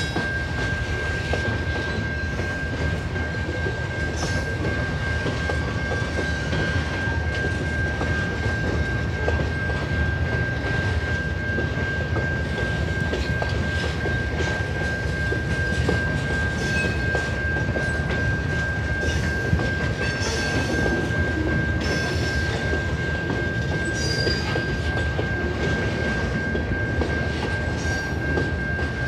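Freight train cars rolling steadily past: a continuous low rumble of wheels on rail with scattered clicks over the joints. A steady high-pitched tone runs underneath throughout.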